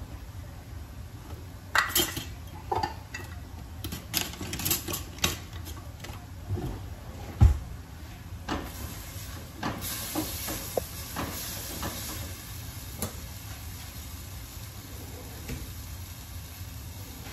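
Clatter of plates, a spoon and pans being handled, with one heavy thump about seven seconds in; then a steady sizzle and hiss from food cooking in a steel pan on the gas stove.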